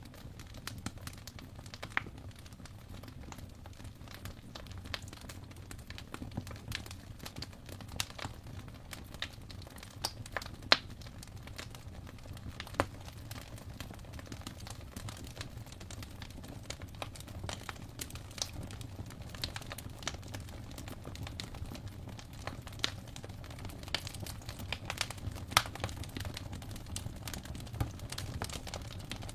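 Wood fire burning in an open fireplace: a steady low rumble of the flames with irregular sharp crackles and pops.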